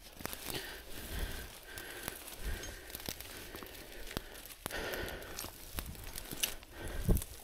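Dry brush and branches crackling and rustling as a person pushes through them on a rope, with many small sharp clicks and snaps and a heavier thump near the end.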